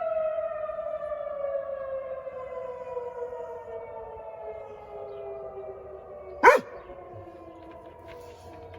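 Outdoor tornado warning siren winding down at the end of its test: its tone falls steadily in pitch and fades. About six and a half seconds in, the Labrador gives a single short yelp.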